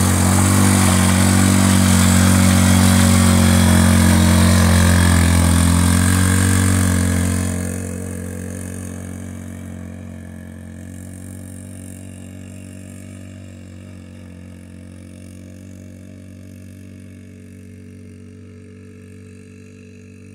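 Yamaha Grizzly 90 youth ATV's small four-stroke single-cylinder engine running at steady throttle near the camera. About eight seconds in it drops away sharply, then fades steadily as the quad drives off.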